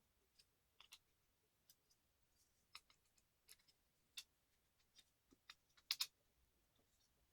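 Faint, scattered small clicks and taps of laptop parts and tools being handled during a hard drive swap, with a louder double click about six seconds in.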